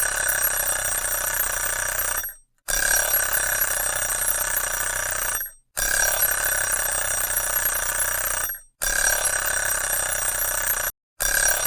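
Alarm clock ringing loudly in rings of two to three seconds, each broken by a brief silent pause, repeating over and over.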